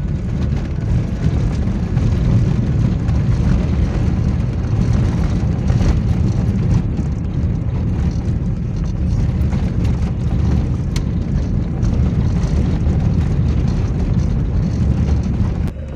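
Vehicle driving on an unpaved dirt road, heard from inside the cabin: a steady low rumble of engine and tyres on the rough surface, with a few sharp clicks or knocks from bumps.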